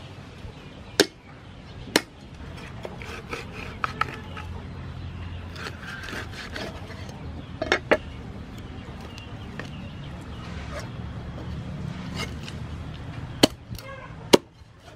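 Meat cleaver chopping a whole raw chicken into pieces on a round wooden chopping board: sharp knocks of the blade striking the wood. Single chops come about one and two seconds in, a quick double chop near the middle and two more near the end, with quieter cutting and handling of the meat between.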